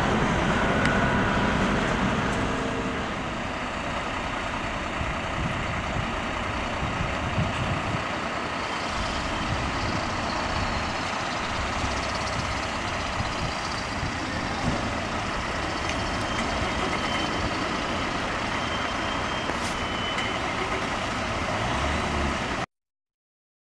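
Jet engines of an Airbus A340-500 (four Rolls-Royce Trent 500s) climbing away after take-off: a steady jet rumble, a little louder in the first few seconds, that cuts off suddenly near the end.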